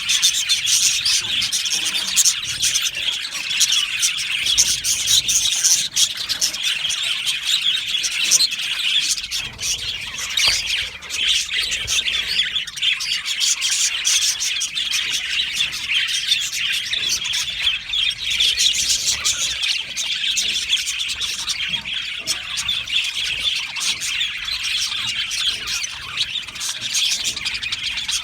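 A flock of budgerigars chattering and chirping together, a dense, unbroken mix of many overlapping short, high chirps and warbles.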